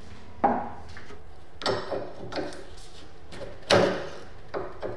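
A dirty bicycle pedal and rusty steel crank arm being handled and turned with gloved hands, giving a series of sharp knocks and clunks. The loudest comes just before the end.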